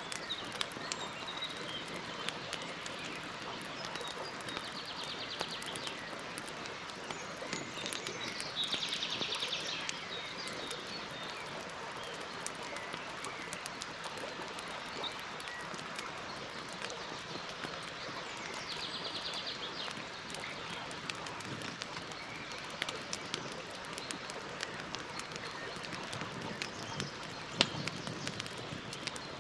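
Campfire burning with steady crackling and frequent sharp pops, one louder pop near the end. A bird gives short, rapid high trills three times.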